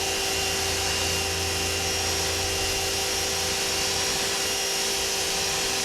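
Pressure washer running and spraying the driveway concrete: a loud, steady motor whine over a dense hiss of water.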